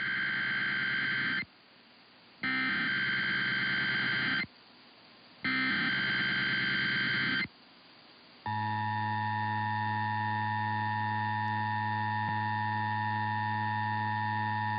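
Emergency Alert System test: three bursts of buzzy digital header data, each about two seconds long with a second's gap between them, then the steady two-tone EAS attention signal starting about eight and a half seconds in.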